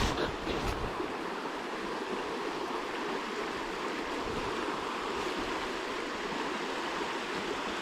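Steady rushing of flowing water in a small river.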